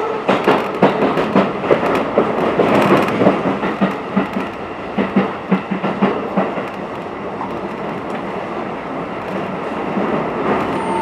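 Keikyu New 1000 series electric train heard from inside the carriage while running, its wheels clattering over track joints in a quick irregular run of clacks for about the first six seconds, then settling into a steadier rumble.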